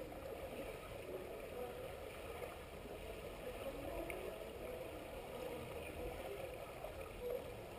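Underwater swimming-pool ambience heard through a submerged camera: a steady muffled wash of water noise stirred by finned swimmers, with a couple of faint clicks.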